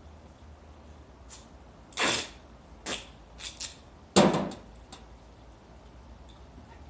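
Handling noises from work in a car's engine bay: a few sharp knocks and clatters of tools or parts over about three seconds, the loudest just after four seconds in.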